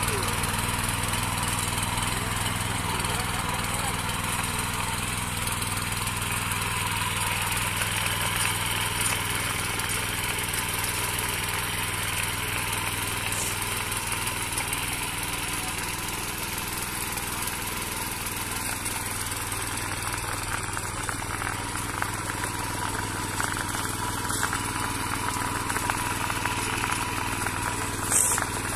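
Mini power weeder's small engine running steadily under load as its tines till the soil, with a short click near the end.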